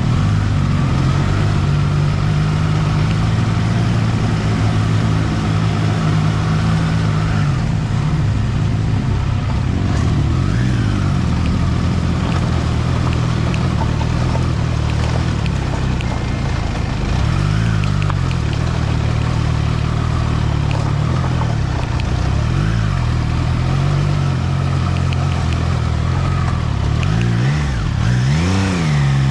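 Triumph Trident 660's inline three-cylinder engine running at low speed, its revs briefly rising and falling several times as the throttle is opened and closed, the biggest rise near the end.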